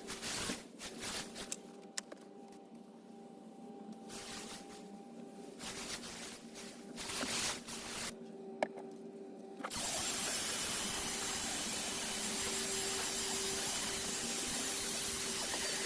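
Short irregular hissing bursts of upholstery cleaner being sprayed onto car carpet, over a faint steady tone. About ten seconds in, a steady, louder rushing noise starts suddenly and holds.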